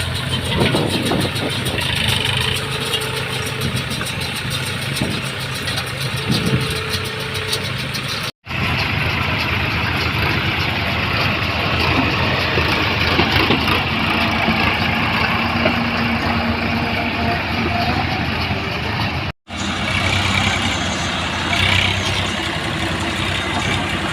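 Tractor engine running steadily while driving a baler at work. The sound drops out abruptly twice, at the joins between clips.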